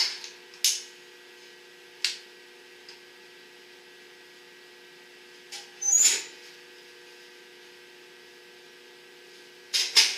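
Sharp clicks of a long-reach lighter as a kerosene heater's wick is lit: three in the first two seconds, then a longer knock and scrape about six seconds in and a quick cluster near the end as the heater is handled. A faint steady hum runs underneath.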